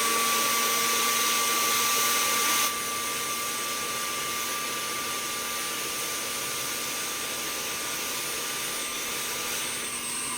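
Heat gun (paint stripper) fitted with a narrow hot-air nozzle, its fan blowing steadily with a constant whine while heating solder on a circuit board. About a third of the way in the blast gets quieter and less hissy, then runs on steadily.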